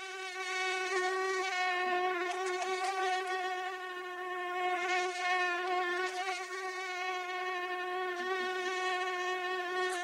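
Mosquito in flight: the high, thin whine of its wingbeats, a steady buzzing tone with many overtones that wavers slightly in pitch, swelling in over the first second.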